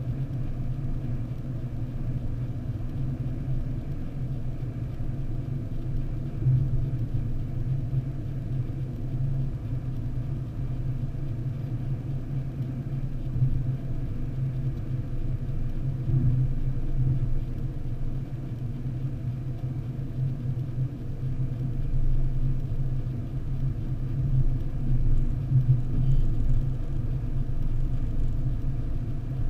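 Steady low rumble of a car's engine and tyres at motorway speed, heard from inside the cabin.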